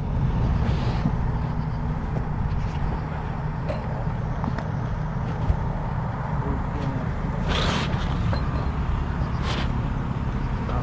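A vehicle engine idling, a steady low rumble, with two brief rustles of handling or clothing in the second half.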